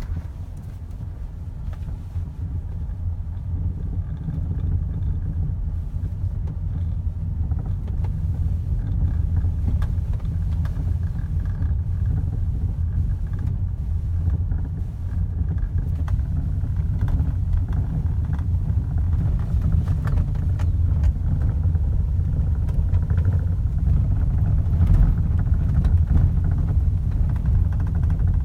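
Steady low rumble with a few faint knocks, slowly growing louder: the steering rack noise of a Volkswagen Passat B8 (3G).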